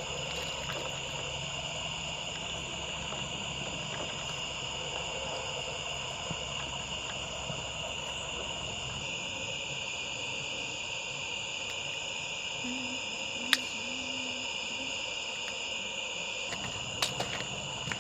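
A steady chorus of night insects trilling, with a low hum underneath that stops about halfway through. A few short low notes come later, followed by one sharp click.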